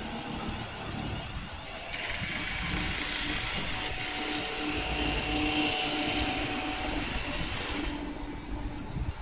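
London Northwestern Railway Class 350 Desiro electric multiple unit moving at the platform, with a steady hum from its traction equipment and a hiss that swells about two seconds in and eases near the end.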